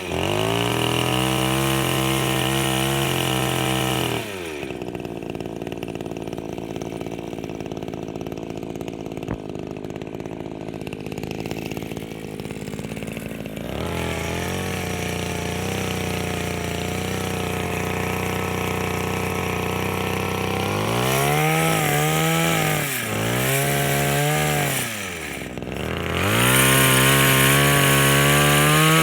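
Castel Garden XH55 petrol chainsaw engine running at high revs, dropping to idle about four seconds in, then having its throttle blipped several times before it is held at full revs near the end.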